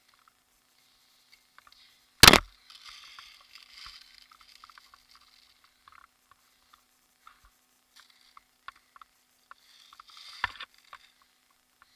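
A loud sharp crack about two seconds in, followed by rustling, then a smaller crack with more rustling near the end, over faint scattered ticking.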